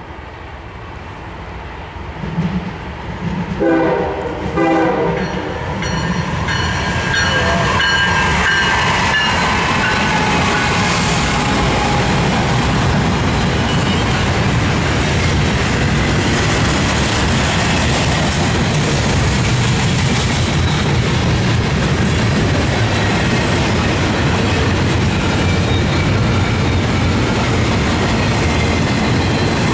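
Norfolk Southern diesel-hauled double-stack intermodal freight train approaching, its rumble growing, with short horn blasts about four seconds in. The locomotives then pass and a long string of container cars rolls by with steady wheel-on-rail rumble and clickety-clack.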